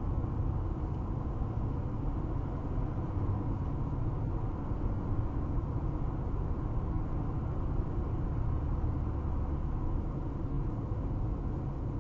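Steady road and tyre rumble inside a car cruising at about 70 mph on a highway.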